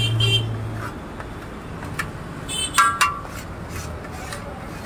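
Metal spatula scraping and tapping on a large flat griddle (tawa), with a few sharp ringing metallic clinks, the loudest around the middle.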